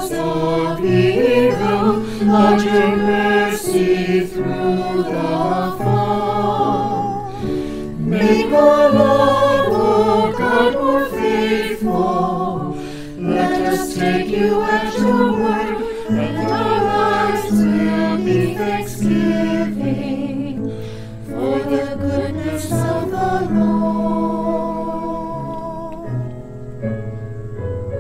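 A church choir sings a hymn in several voices over sustained low accompaniment. Near the end the voices thin out and fade.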